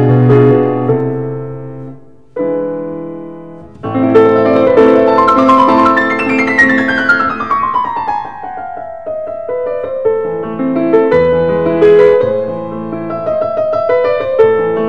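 Background piano music: sustained chords with a long falling run of notes about halfway through.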